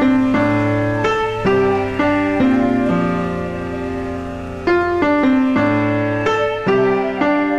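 Background piano music: a slow line of held notes and chords, each struck cleanly.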